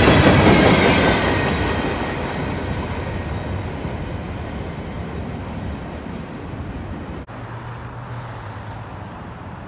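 Tail end of a freight train rolling past close by, its cars rumbling on the rails, then fading steadily as the train moves away down the track. A brief break about seven seconds in leaves only a faint low hum.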